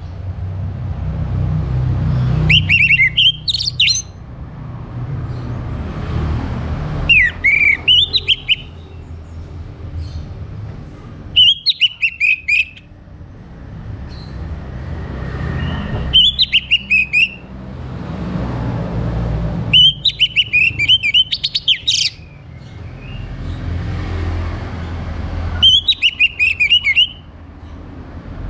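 Orange-headed thrush singing: six short phrases of rapid, high, sweeping notes about every four to five seconds, over a low background rumble.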